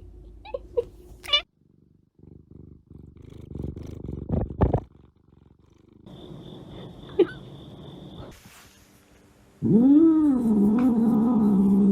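A pet making its noises: low rhythmic rumbling like a purr, two short sharp sounds about four and a half seconds in, then a long, loud drawn-out call near the end that rises, dips and holds.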